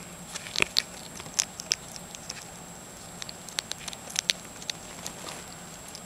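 Hedgehog eating worms from a dish: irregular small crunchy clicks of chewing and picking at the food, in scattered clusters.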